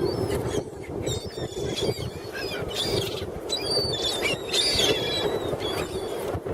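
A flock of seagulls calling, many short high squealing cries overlapping one another, over a steady rushing background noise.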